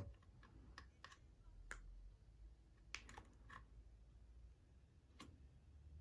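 Near silence, broken by about seven faint, sharp clicks at irregular intervals.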